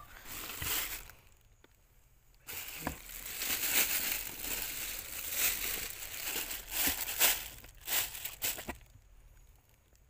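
Thin plastic bag crinkling and rustling as it is stuffed into a styrofoam cool box over fish and ice, on and off for several seconds and stopping a little before the end.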